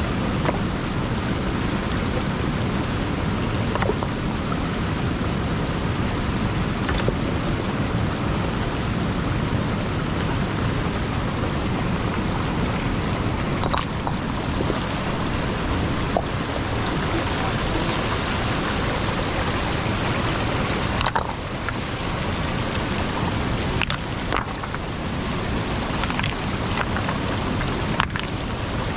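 Shallow, fast river rushing over stones and gravel: a loud, steady rush of water, with now and then a faint brief splash or knock.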